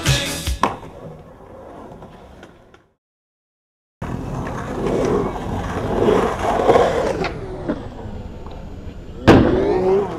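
Background music fading out in the first few seconds, then a brief silence. After that, skateboard wheels rolling on concrete, with a loud sharp clack near the end.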